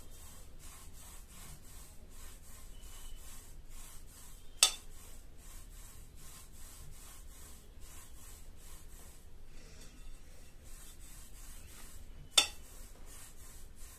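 Palms rolling a log of soft mawa (khoya) dough back and forth on a ceramic plate, a faint rubbing in quick, even strokes. Two sharp clicks stand out, about eight seconds apart.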